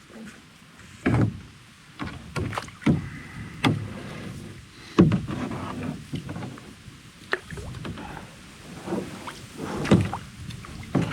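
Irregular knocks and thumps against a kayak's hull as gear is moved around aboard, the loudest about five seconds in and again just before ten seconds.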